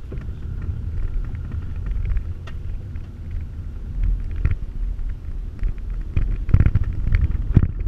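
Low rumble of a vehicle driving a bumpy dirt trail, heard from inside the cabin, with knocks and rattles as it jolts over ruts; a few louder jolts near the end.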